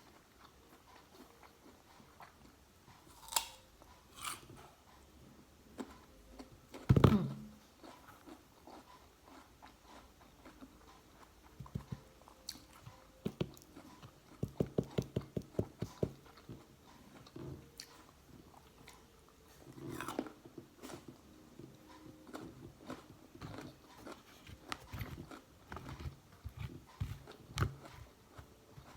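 Close-up chewing and crunching of crisp seedless guava: irregular crunchy chews, with a quick regular run of crunches about halfway through. One loud thump comes about seven seconds in.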